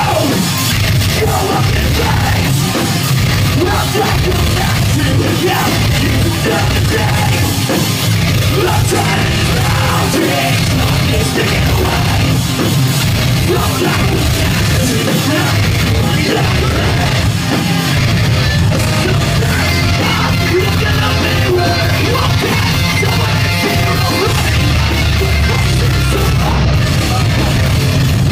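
Live pop-punk band playing loud with distorted electric guitars, drums and shouted vocals, heard from within the crowd.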